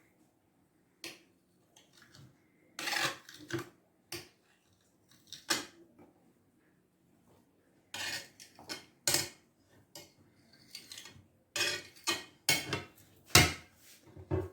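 Kitchen knife cutting an apple on a cutting board: irregular knocks and clinks of the blade and dishes, sparse at first and coming more often in the second half.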